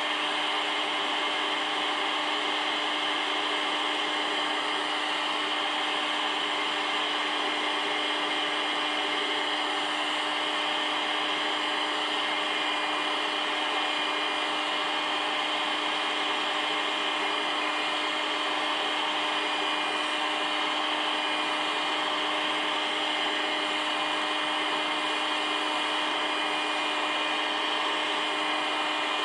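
A small electric motor with a fan running steadily: an even, unbroken whirring hiss with a constant hum.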